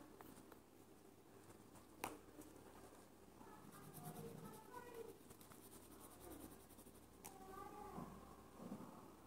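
Very quiet scratching of a green marker colouring the back of a glass phone case, with two light clicks. A few faint, high wavering calls sound in the background around the middle and near the end.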